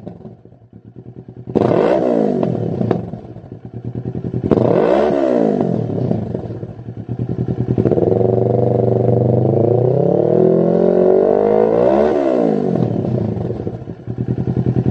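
Kawasaki Z650's parallel-twin engine through a Lextek SP1 aftermarket silencer, revved while stationary. It gives two quick blips that fall straight back to idle, then a longer rev that climbs steadily for about four seconds before dropping. It rises again near the end.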